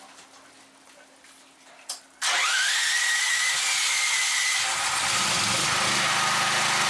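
A handheld electric angle grinder switched on about two seconds in: its motor whine rises quickly and settles into a steady high running note. A lower, rougher layer joins about two seconds later.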